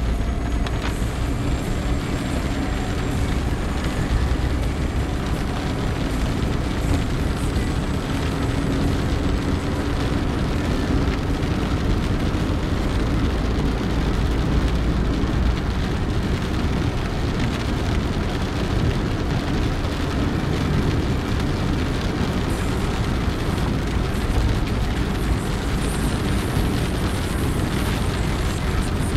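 Steady road noise inside a moving car in the rain: a deep rumble from the engine and tyres, with the hiss of tyres on the wet road.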